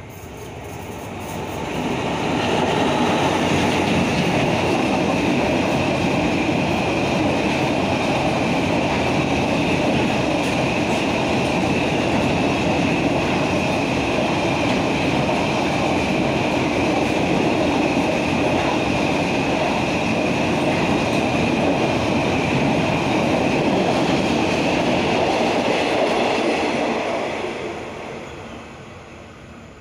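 Container freight train passing close by: wheel-on-rail rumble and clatter that builds over the first couple of seconds, holds level with a thin steady high whine over it, then fades away a few seconds before the end.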